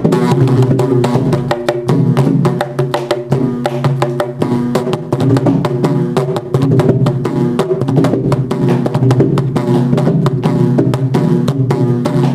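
Mridangam played solo with both hands: a fast, dense stream of strokes, the tuned right head ringing at one steady pitch. It is a tani avartanam in the seven-beat Mishra Chapu tala.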